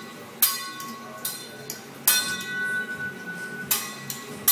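Teppanyaki chef's steel spatula and fork clanging against each other and the griddle during a utensil trick routine: about four sharp metallic strikes, each ringing on briefly, the one near the middle the loudest and longest.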